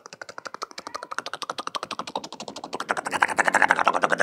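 A man imitating a helicopter's rotor with his mouth: a fast, even chatter of tongue-and-lip syllables ('ta-ka ta-ka') that turns voiced and louder about three seconds in ('da-ga da-ga').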